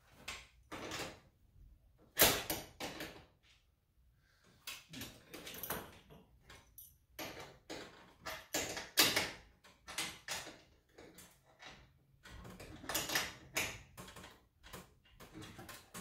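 Irregular metal clicks, scrapes and knocks from hand-fitting a leg screw into the steel end bracket of a garage door torsion spring. The loudest knocks come about two seconds in, about nine seconds in and about thirteen seconds in.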